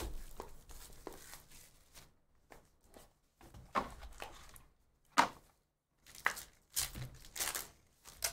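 Hands opening a cardboard trading-card hobby box, with scrapes and light taps and one sharp snap about five seconds in. Near the end comes a run of crinkling and tearing as a foil card pack is ripped open.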